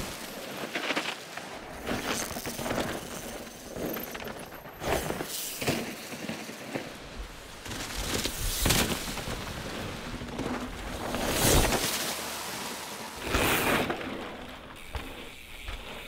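Downhill mountain bike tyres running fast over a dirt trail strewn with dry leaves: a noisy rush that swells loudly several times as the bike passes close, about 9, 11 and 13 seconds in.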